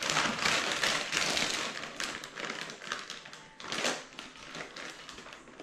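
Plastic bag of grated cheese rustling and crinkling as handfuls are pulled out and scattered over nachos, with a louder rustle about four seconds in.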